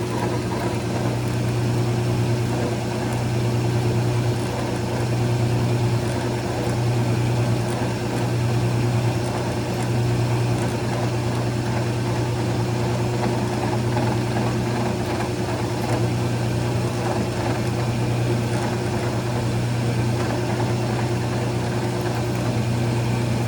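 Drill press running steadily with a low hum, boring a tap hole with a number 25 drill bit into a broken steel hinge pin.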